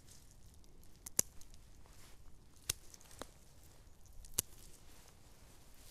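Pruning shears snipping off the longest shoot tips of a juniper: a handful of sharp, separate cuts about a second or so apart, the loudest about a second in.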